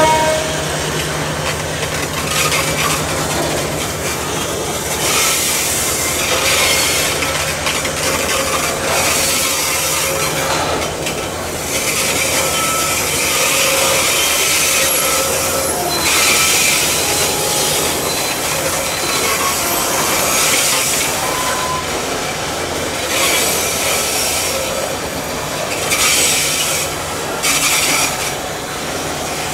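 Loaded coal hopper wagons of a long freight train moving on a curve, their wheels squealing and hissing in repeated surges a second or two long, over a steady low drone from the diesel locomotives.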